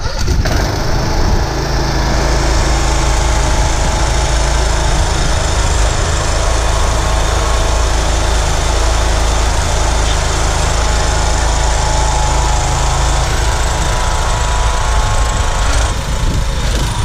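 Small lawnmower engine of a homemade buggy running steadily as the buggy is driven.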